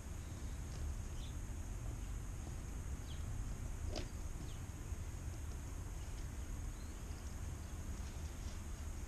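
Steady low wind rumble on the microphone, with a few faint, short bird chirps and a single sharp click about four seconds in.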